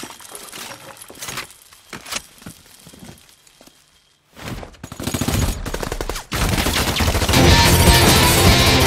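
Film gunfire from a briefcase-mounted machine gun: scattered shots and impacts at first, then rapid automatic fire from about four seconds in. Rock music with a steady beat comes in about seven seconds in.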